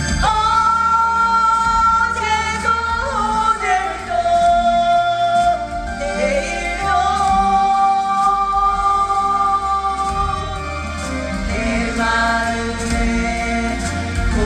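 Singing with musical accompaniment: voices holding long notes that glide between pitches.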